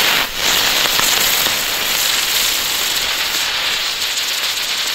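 Small category F1 youth ground firework spraying sparks with a loud, steady hiss that starts suddenly and holds.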